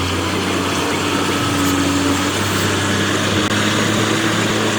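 A small motor running steadily, with a low hum over a constant hiss.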